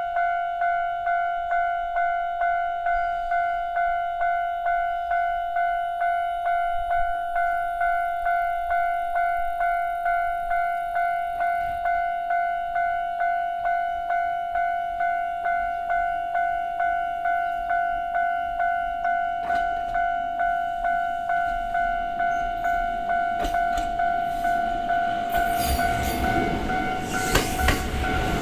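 Japanese railway level-crossing warning bell ringing in a steady repeated electronic ding, about one and a half strikes a second. From about twenty seconds in, a Choshi Electric Railway 3000-series train is heard approaching and growing louder. Near the end its wheels click sharply over the rail joints.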